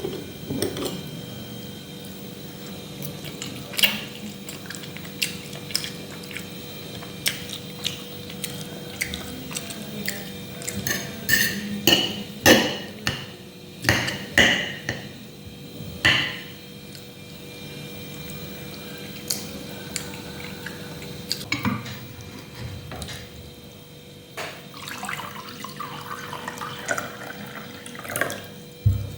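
Kitchen work: dishes and utensils clinking and knocking irregularly, with water sounds, and a cluster of sharper knocks in the middle.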